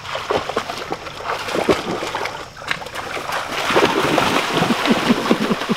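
Pond water splashing and sloshing irregularly as a puppy and a child wade through shallow muddy water, getting louder about halfway through.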